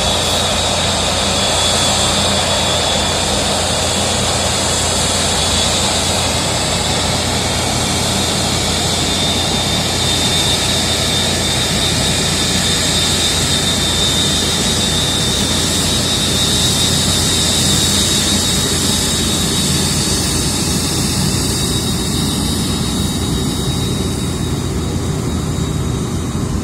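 Airbus A380-800's four turbofan jet engines running, a loud steady jet roar with a high whine held throughout; the higher part of the sound eases a little near the end.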